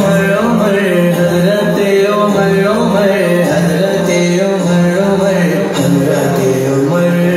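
Devotional tribute song: a voice singing a wavering melody over a steady held drone.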